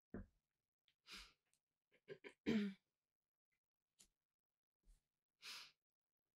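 A person's breaths and sighs, faint and close, the loudest about midway, with a few small clicks between them.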